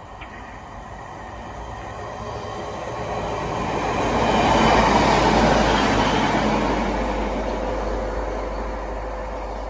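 A single-car Class 153 diesel multiple unit passing through a station at speed without stopping. Its underfloor Cummins diesel engine and the wheels on the rails grow louder to a peak about five seconds in, then fade as it runs away.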